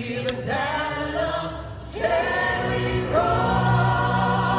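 Gospel choir singing a spiritual in full harmony: one phrase ends, a new one begins about two seconds in and settles into a long held chord.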